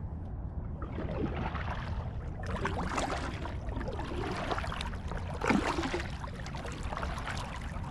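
Double-bladed kayak paddle strokes: the blades dip, pull and lift out of shallow water with splashing and dripping, a run of uneven splashes that is loudest in the middle.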